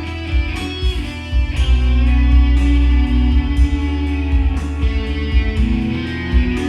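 Music led by electric guitar, with bass and drums keeping a steady beat.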